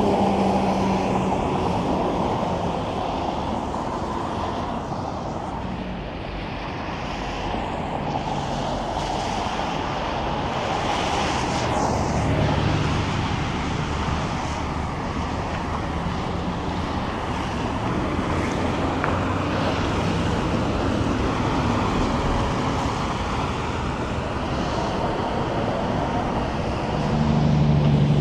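Highway traffic passing: steady tyre and road noise with the low engine drone of semi trucks, which swells about halfway through and again near the end as trucks go by.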